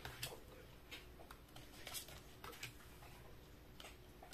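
Oracle cards being laid down and slid into place on a tabletop: a few faint, separate taps and light scrapes spread over a few seconds.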